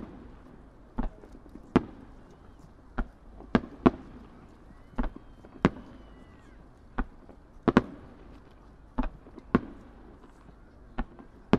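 Distant aerial firework shells bursting, about a dozen sharp bangs at roughly one a second, often two in quick succession.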